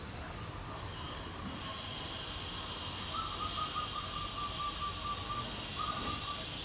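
Puppy whining: a thin, high, wavering whine held for about two seconds, then a shorter one just after, over a steady high hiss.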